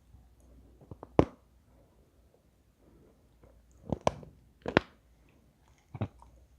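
Person biting and crunching pieces of eating chalk: four sharp crunchy bites, about a second in, twice around four to five seconds, and once near the end, with quieter chewing between.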